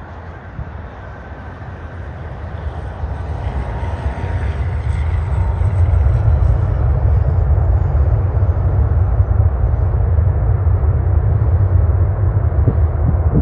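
Aircraft engine noise: a deep rumble that grows louder over the first six seconds and then holds loud and steady, with a faint high whine slowly falling in pitch partway through.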